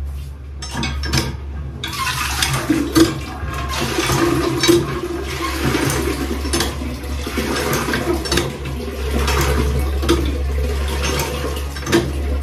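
Water gushing from a tap into a container as it fills, starting about two seconds in.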